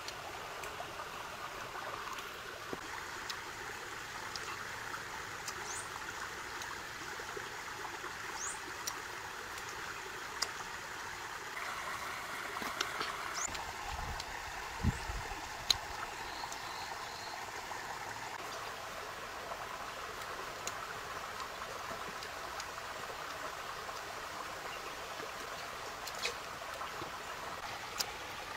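Shallow rocky stream running steadily, a constant babbling wash of water. Scattered small clicks and soft taps sit over it from the fruit being handled, and there is one short low thud about halfway through.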